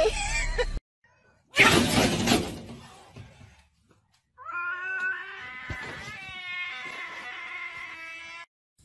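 A loud sudden noisy burst that fades over about a second, then a cat yowling in one long drawn-out call of about four seconds, wavering near the middle.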